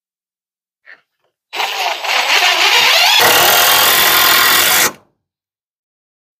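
A handheld power tool runs for about three and a half seconds, rising in pitch, then gets louder and deeper about halfway through before stopping abruptly. A faint click comes just before it.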